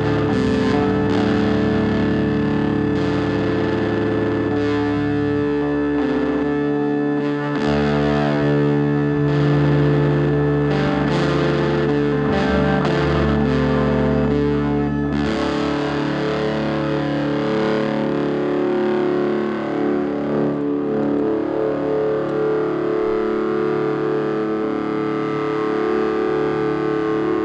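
Music: distorted electric guitar run through effects, holding long droning chords that change every few seconds.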